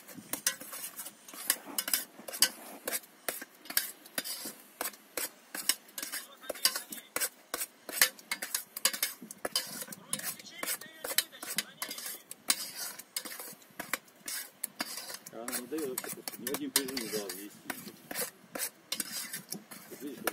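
Utensil stirring and clinking in a bowl: a quick, irregular run of sharp clicks and scrapes.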